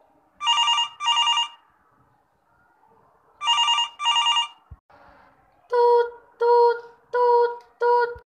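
Telephone sound effects: a double ring sounds twice, then a single click, then a busy signal of four short beeps, about one every 0.7 seconds, meaning the line is busy.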